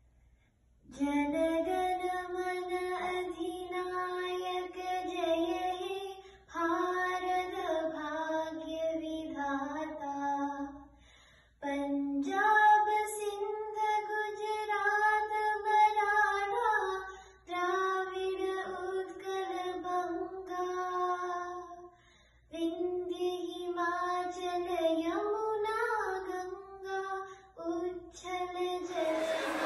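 A young girl singing solo and unaccompanied, in long held phrases with short breaks between them.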